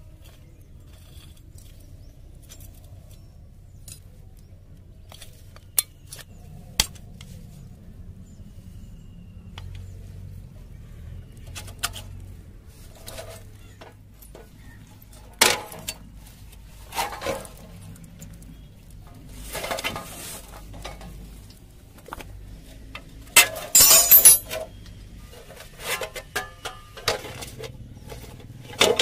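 Metal tools and small parts clinking and clattering as they are handled, in scattered sharp knocks. The busiest clatter comes about 24 s in, over a faint low hum.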